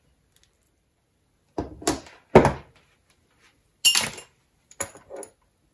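Hand tools and parts being handled and set down on a wooden worktop: a string of knocks and clatters, the loudest about two and a half seconds in, then a sharper clatter about four seconds in and two lighter knocks near the end.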